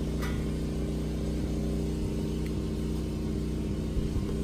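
An engine running steadily at a constant speed, with a light knock about four seconds in.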